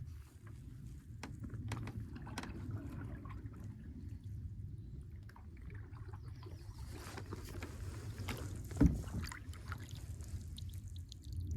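A canoe on the water being paddled, with paddle strokes, water sounds and scattered light clicks. There is a sharp knock about nine seconds in.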